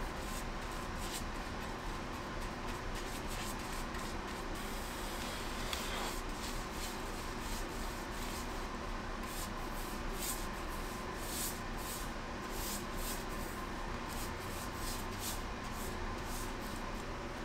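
Paintbrush strokes swishing over the cast-iron base and column of a milling machine, about two strokes a second and louder in the second half, over a steady low room hum.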